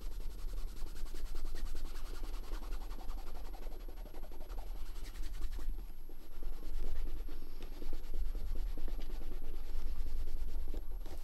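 A cloth rubbing over the leather of a Red Wing 9874 work boot, polishing it: a continuous scuffing and rubbing sound.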